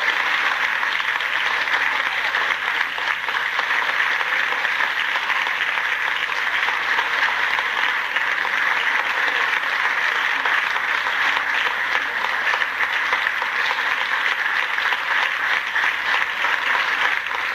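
Audience applauding with dense, steady clapping that does not let up.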